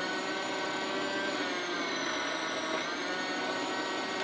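Electric food processor running with its grater disc, shredding raw potato pushed down the feed tube: a steady motor whine whose pitch sags slightly in the middle and picks up again about three seconds in.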